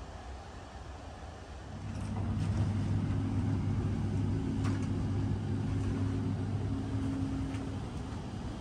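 Steady low hum with a level tone above it from a stationary VR InterCity double-deck carriage's ventilation and onboard equipment, growing louder about two seconds in. A few faint clicks sound over it.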